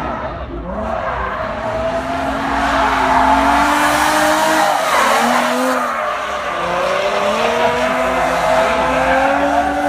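Drift car engine revving up and down repeatedly as the car slides sideways, over the screech of its rear tyres spinning and skidding on asphalt. Loudest around the middle, as the car swings close.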